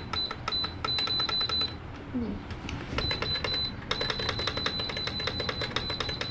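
Rapid electronic beeping from an appliance's control panel, short high beeps with clicks about four or five times a second, pausing briefly twice, as the heater or window unit is being set.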